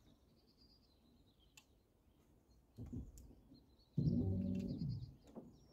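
Faint birdsong, then, about four seconds in, a loud low creaking groan as the long prodding stick is pushed down into the riverbed to feel for stumps and snags.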